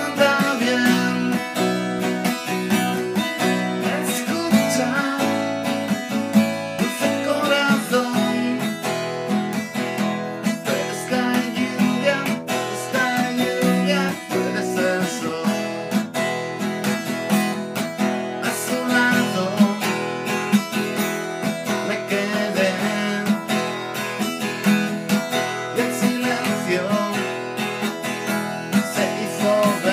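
Acoustic guitar played steadily, strumming chords mixed with plucked notes.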